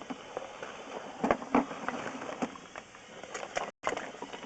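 Irregular clicks and knocks of a sewer inspection camera's push cable and camera head being fed down a pipe cleanout, over a faint hiss of running water.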